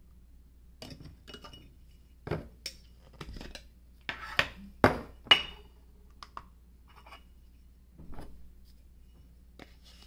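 Metal kitchenware clinking and knocking: a small metal scoop, an opened coffee tin and a stainless steel dosing cup handled while ground coffee is measured out on a scale. A string of sharp clinks, some ringing briefly, with the three loudest close together about four to five and a half seconds in.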